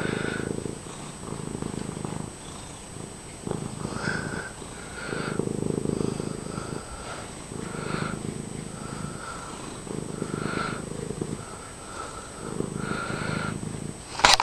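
Domestic cat purring loudly and steadily, the purr swelling and fading with each breath about every second or two.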